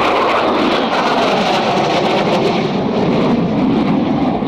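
Loud, steady jet noise from an AV-8B Harrier's Rolls-Royce Pegasus turbofan engine during its flying display.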